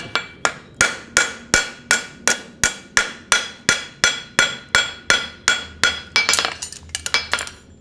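Forging hammer striking a steel horseshoe held on an anvil in a steady rhythm, about three blows a second, each with a metallic ring: the final clean-up blows on the shoe. A few lighter, quicker taps come near the end.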